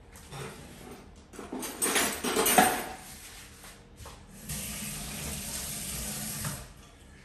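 Kitchen tap running into a sink: uneven splashing and clatter for a second or two, then a steady stream of water for about two seconds before it is turned off.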